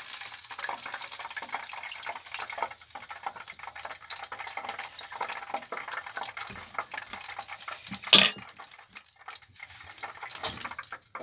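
Hot fat sizzling and crackling in a frying pan as a battered fish fillet is lifted out, with light scrapes of a spatula and fork on a metal tray. The crackle thins out after about six seconds, and a sharp clatter about eight seconds in is the loudest sound.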